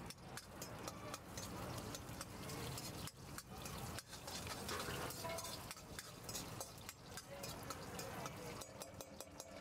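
A steel ladle stirring and scraping chopped green chillies and spices frying in oil in a black kadhai, with a steady sizzle and many quick clicks and scrapes of metal on the pan.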